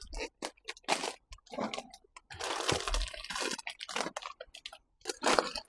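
Thin plastic bag crinkling and rustling in irregular handfuls as it is handled and stickers are put on it, with small clicks and taps between.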